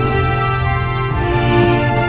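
Background music with sustained, steady chords.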